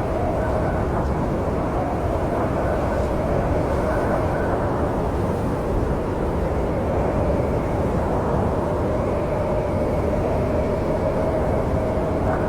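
Snowstorm wind blowing steadily: a deep, even rush of noise with a faint howling tone that swells and fades.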